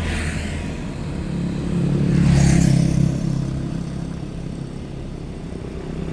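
An engine running steadily, growing louder about two seconds in and easing off after the third second.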